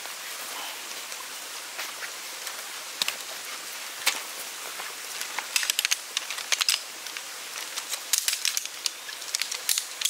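Metal pole sections of a collapsible camp chair frame clicking and clacking as they are handled, in scattered single clicks and then quick rattling clusters about halfway through and again near the end, over a steady outdoor hiss.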